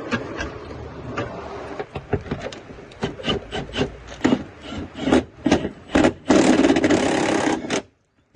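Clicks and knocks of hand tools and metal parts while a gearbox cross member is being fitted under a car, then a loud steady noise lasting about a second and a half near the end.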